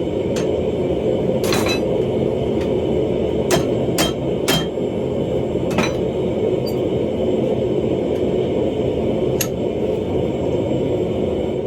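Steel being worked in a forging shop: a steady, loud machinery drone under irregular sharp metal clinks and hammer taps. Some of the clinks ring briefly.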